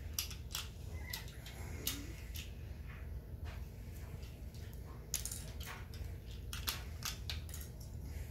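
Toy trains and wooden toy-railway track clicking and knocking as they are handled: scattered light clicks at irregular moments, bunched in a few short clusters.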